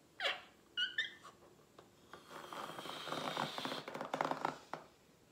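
A small latex balloon being blown up by mouth. A couple of short rubbery squeaks come in the first second. Then about three seconds of breath is pushed into the stretching balloon, with a crackly rasp.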